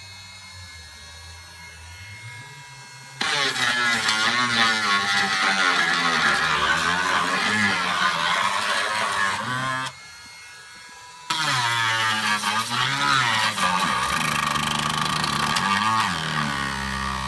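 Dremel rotary tool with a sanding drum grinding the cut edges of PVC pipe smooth. It runs quietly for the first few seconds, then grinds loudly in two long stretches with a short break about ten seconds in, its whine rising and falling as it bears on the plastic.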